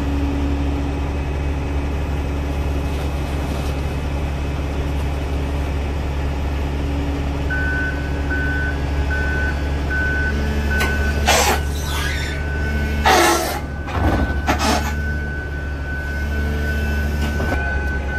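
Komatsu wheel loader loading a flatbed: a heavy diesel engine runs steadily, and a backup alarm starts beeping about halfway through, then holds a steady tone. Near the middle come three short, harsh hissing or scraping bursts.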